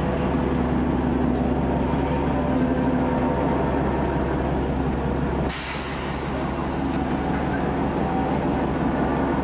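Lxd2 narrow-gauge diesel locomotive idling with a steady, low engine hum. A little over halfway through, the sound changes abruptly and a steady high hiss joins the hum.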